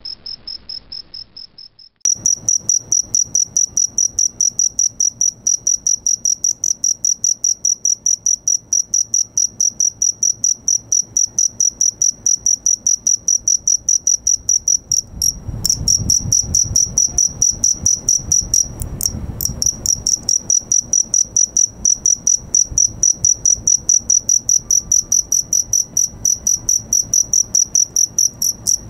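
Male cricket calling close to the microphone with its forewings raised: a high-pitched chirping in fast, even pulses, repeated several times a second, louder after about two seconds. A low rumble joins it briefly around the middle.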